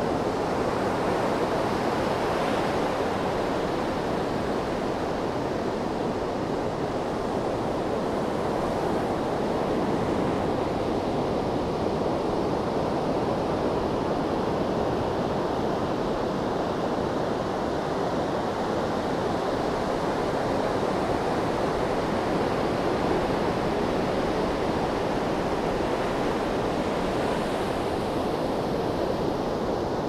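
Gentle ocean surf: a steady wash of small waves, swelling and easing slightly every several seconds, with no big crashing breakers.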